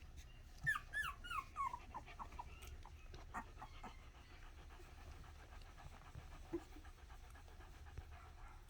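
Miniature Australian Shepherd puppies whimpering: a quick run of about six short, high squeaks, each falling in pitch, about a second in, then only faint scattered small sounds.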